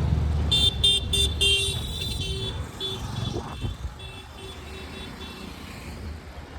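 Road traffic rumbling, with a vehicle horn sounding a quick, uneven series of short beeps that trail off about five seconds in.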